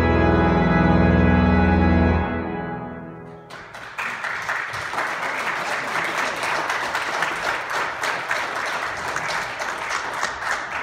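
A virtual pipe organ modelled on a 1902 two-manual Cavaillé-Coll holds a loud final chord, which is released about two seconds in and rings away. About a second and a half later the audience breaks into applause, which carries on.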